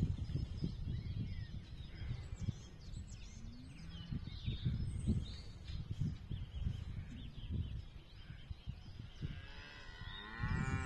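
A cow mooing, one long call near the end, with small birds chirping faintly and an uneven low rumble on the microphone.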